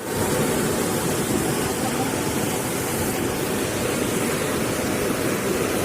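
Steady rushing of flowing floodwater, an even noise without a break.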